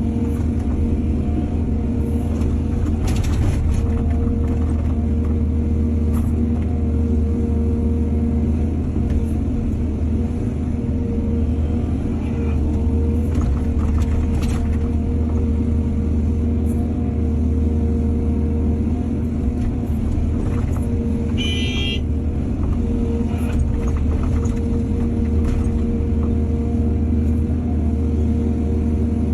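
Excavator's diesel engine running steadily under load, with a few brief knocks and a short high-pitched squeal about two-thirds of the way through.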